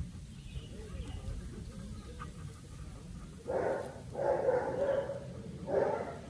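A dog vocalizing in three short bursts over the last few seconds, the middle one the longest, at about a second.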